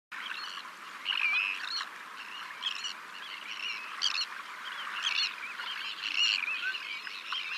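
Several small birds singing and chirping together, a run of quick warbling phrases, some overlapping, over a steady hiss.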